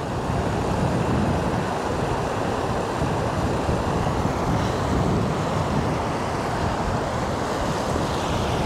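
Small moorland waterfall and stream rushing over rock slabs, a steady loud rush of water, with wind buffeting the microphone.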